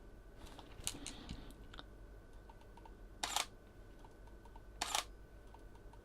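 Sony A7RII mirrorless camera's shutter firing twice, about a second and a half apart, each a short double click. This is the camera taking pictures while powered through a dummy battery from a power bank's 2.4 A port.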